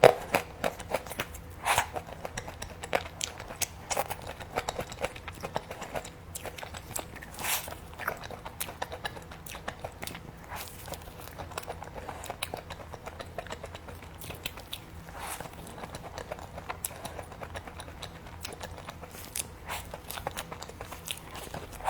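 A person eating close to the microphone: chewing and biting, with many small, irregular crunches and wet mouth clicks.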